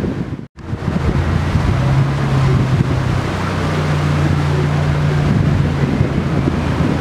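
Wind buffeting the microphone over the steady low hum of a jet airliner's engines on the airfield, with a faint high engine whine rising slightly near the end. The sound drops out briefly at a cut about half a second in.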